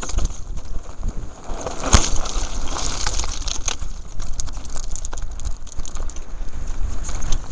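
Mountain bike rattling down a loose gravel and stone trail at speed: wind rumbling on the microphone, with a stream of clicks and knocks from the bike over the stones and one sharp knock about two seconds in.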